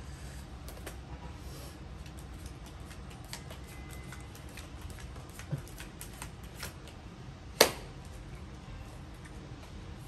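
Playing cards being dealt onto a woven straw mat and picked up: scattered light taps and flicks of cards, with one sharper snap about three-quarters of the way through.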